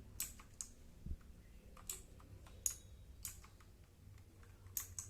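Redgear MK853 mechanical keyboard with blue clicky switches, single keys pressed one at a time at uneven intervals, about seven sharp clicks.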